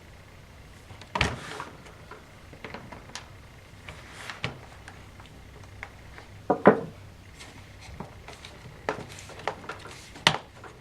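Scattered small clicks, taps and knocks as screws are removed with a Phillips screwdriver and the laptop's plastic case is handled, the loudest about a second in, around six and a half seconds with a short ring, and near the end.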